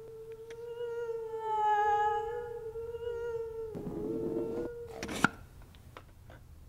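A sustained, slightly wavering eerie tone that swells with bright overtones about two seconds in. A noisy rush joins it near four seconds, and it cuts off with a sharp click about five seconds in.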